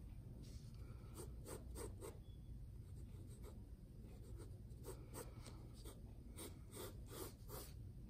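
Pencil scratching on drawing paper in a run of short, quick strokes, faint.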